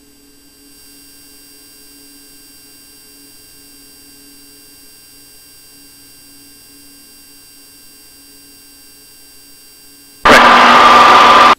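Steady electrical hum with faint fixed whining tones in the Cessna 182's cockpit audio, the engine itself barely heard. About ten seconds in, a sudden very loud burst of harsh noise cuts in and runs for just over a second.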